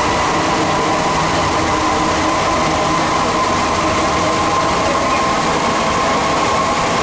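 Santiago Metro Line 2 train heard from inside the car while running underground. A loud, steady rolling rumble carries a high whine that creeps slightly up in pitch.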